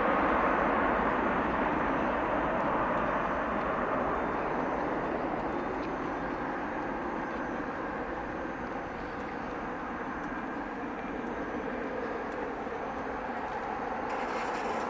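Jet airliner engine noise: a steady roar, loudest at the start and slowly fading as the aircraft moves away.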